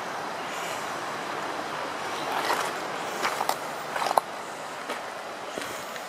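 Shallow river rushing steadily over stones, with footsteps crunching on a pebble bank, a few sharp scrunches between about two and four seconds in.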